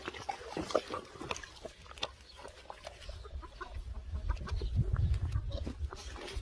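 Chickens clucking in short, scattered calls, with a low rumble building from about halfway through.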